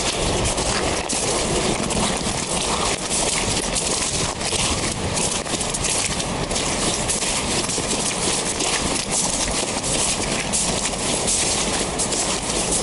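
Footsteps crunching on snow-crusted lake ice: a steady run of crisp scrunches as someone walks out across it.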